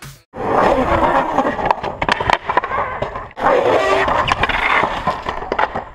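Longboard wheels rolling fast down asphalt, a steady rolling rumble with scattered sharp clicks over the road surface, dropping out briefly about halfway through.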